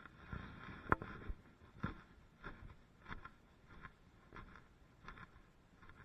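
A series of faint, light knocks, about one every half second or so, the sharpest about a second in and the rest growing quieter.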